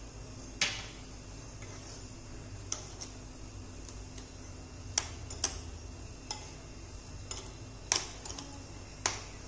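A metal spoon clinking against a glass bowl while stirring boiled corn kernels coated in cornflour: short, irregular clinks a second or two apart over a low steady hum.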